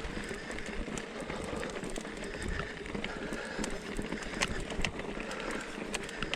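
Hardtail mountain bike riding over rocky trail: tyres rolling on rock, with scattered sharp clicks and rattles from the bike and a low rumble of wind on the microphone.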